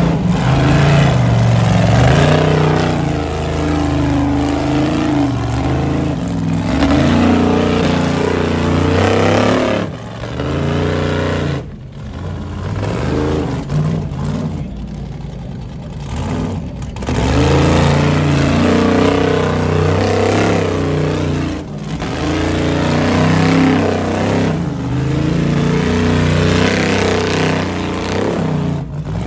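Ultra4 rock-racing car's engine revving hard in repeated throttle bursts under load on a boulder climb, easing off to a lower level for several seconds about a third of the way through before revving hard again.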